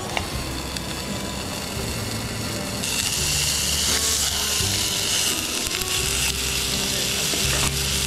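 Thick bone-in pork chop searing in a frying pan on a portable gas stove, with a hissing sizzle that sets in about three seconds in. Background music with a steady bass line plays throughout.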